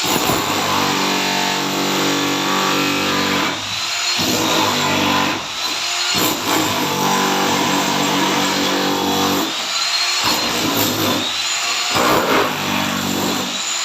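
A motor running at a steady pitch, cutting out briefly several times and starting again.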